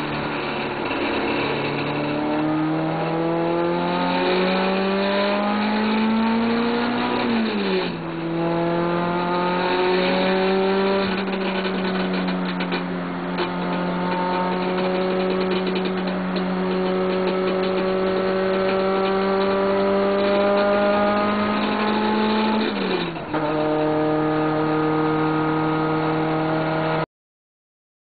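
Toyota 86's engine pulling hard through the gears, its pitch climbing and then dropping sharply at upshifts about 7 seconds and 23 seconds in. The sound cuts off abruptly near the end.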